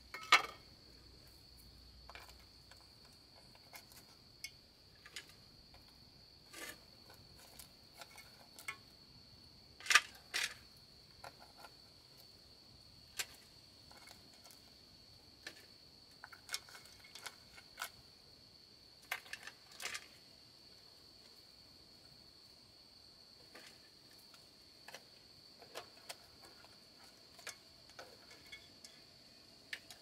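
A steady, high-pitched insect drone of crickets, with sharp clicks and knocks at irregular intervals throughout; the loudest come just after the start, twice in quick succession about a third of the way in, and again about two thirds in.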